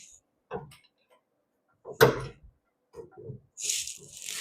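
Scattered clunks and knocks as a Ford 302 small-block V8 with its bell housing is worked out of a car's engine bay on an engine hoist. The loudest is a sharp knock about two seconds in, and a short hiss comes near the end.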